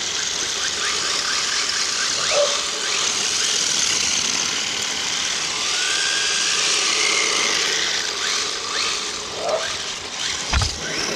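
Radio-controlled drift cars running and sliding on coarse asphalt: a steady gritty hiss of the tyres with a faint whine that rises and falls with the throttle. A few sharp knocks near the end.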